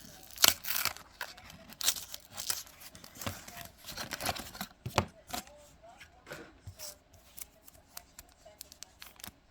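Trading-card booster pack wrapper being torn open and crinkled, several noisy rips and rustles over the first five seconds. Then light clicks and taps as the cards are handled.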